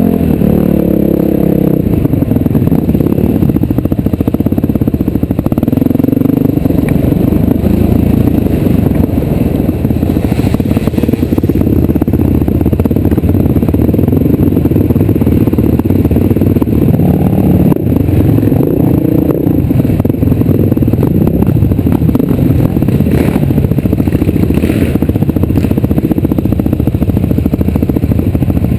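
Off-road vehicle engine running continuously under changing load, its pitch rising and falling as the throttle varies, with clatter and scraping over rough ground.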